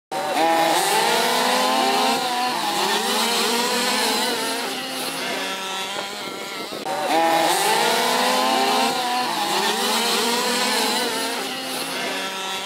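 Several HPI Baja 1/5-scale RC cars' small two-stroke petrol engines racing together, each whining up and down in pitch as the cars accelerate and back off.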